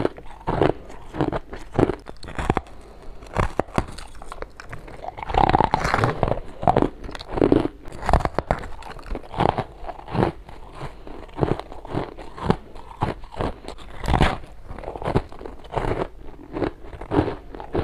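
Teeth biting through chunks of hard, powdery freezer frost held up to the mouth: a long series of short, sharp crunching bites in quick succession, close to the microphone.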